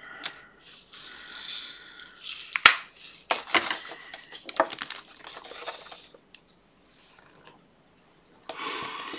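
Small plastic resin drills rattling and rustling in a plastic diamond-painting drill tray as it is handled, with a few sharp clicks. It stops for a moment about six seconds in, then starts again near the end.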